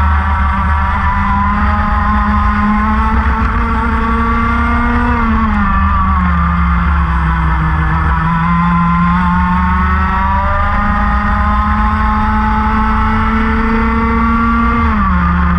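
Racing kart engine at high revs, heard from an onboard camera. The pitch drops about five seconds in as the kart slows for a corner, climbs steadily for several seconds as it accelerates out, then drops again near the end.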